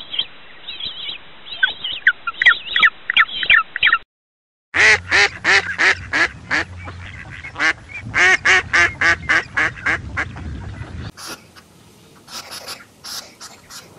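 Mallard ducks quacking in two rapid runs of loud quacks, about five seconds in and again about eight seconds in. Before them come high, chirping bird calls and a brief silence. Faint scattered clicks follow near the end.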